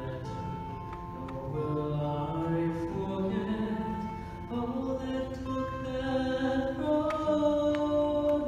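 A male voice singing a slow melody with long held notes into a microphone, over a musical accompaniment, amplified through a hall's sound system.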